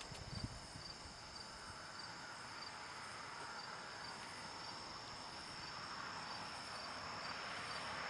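Crickets chirping in a night chorus, short even chirps about twice a second over a steady high trill, faint under a light hiss. A brief low rumble comes about half a second in.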